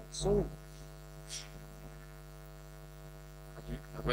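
Steady electrical mains hum with a buzzy stack of overtones in the sound system, with the presenter's microphone cut out. A few faint clicks near the end.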